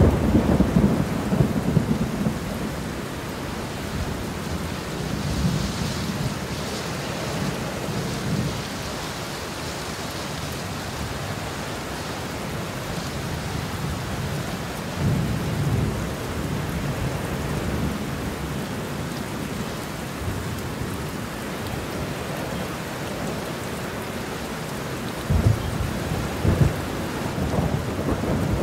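Heavy rain falling steadily, with thunder rumbling low at the start and again around halfway, and sharper, louder claps of thunder near the end.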